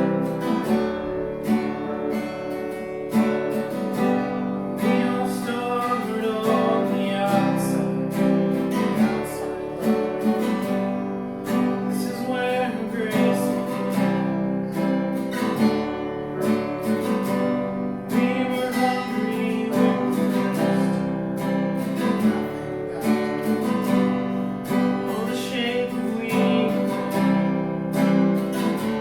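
Acoustic guitar strummed in a steady rhythm, playing the chords of a worship song.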